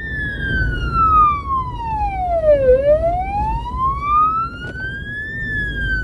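Emergency-vehicle siren in a slow wail on a blood and medicine transport car, heard from inside the car. It falls from a high pitch to a low one over nearly three seconds, climbs back up, and starts to fall again near the end. A steady engine and road rumble runs underneath.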